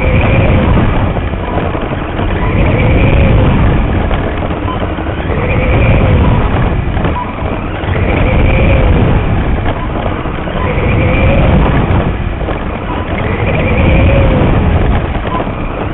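Onboard sound of a radio-controlled mini late model race car lapping a small dirt oval: its motor whine rises and then falls in pitch about every two and a half seconds, one swell per lap, over a loud, steady rumble picked up by the car-mounted camera's mic.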